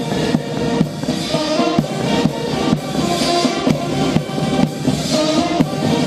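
Military band playing a march, with melody instruments over a steady bass drum and snare beat of about two strokes a second.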